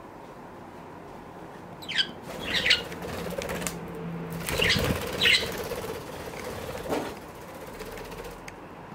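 Budgerigars flying and flapping their wings around a perch, in several short flurries about two and five seconds in.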